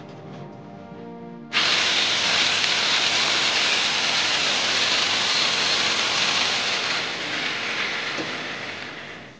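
Angle grinder or wall chaser cutting a groove into a brick-and-plaster wall for electrical conduit: a loud, steady grinding hiss that starts abruptly about a second and a half in and fades away near the end.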